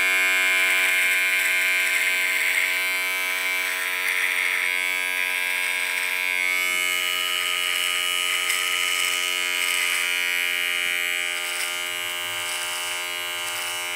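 Handheld electric beard trimmer buzzing steadily as it is run over the mustache and chin, its tone changing a little about halfway through.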